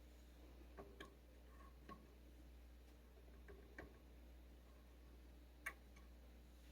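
Near silence: a low steady hum with about five faint, irregularly spaced clicks, the sharpest one near the end.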